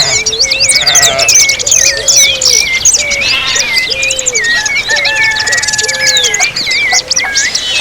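Dense chorus of several songbirds singing and chirping at once, many quick high whistled notes overlapping, with a lower note repeated about twice a second underneath.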